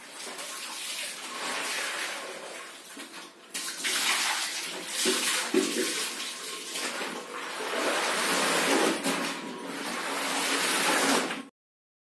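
Wet clothes being lifted, rubbed and wrung by hand in a plastic tub of water, with sloshing and splashing in uneven swells. The sound cuts off abruptly near the end.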